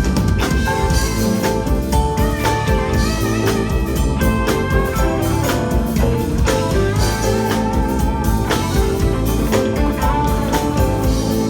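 Live blues band playing an instrumental passage, guitar leading over a drum kit.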